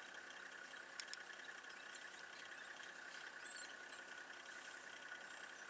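Vehicle engine idling quietly, with a steady high-pitched hum over it and a single sharp click about a second in.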